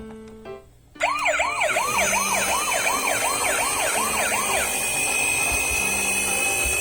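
A toy ambulance's electronic siren, starting about a second in with a fast rising-and-falling yelp of about three sweeps a second, then changing to one steady high tone for the second half.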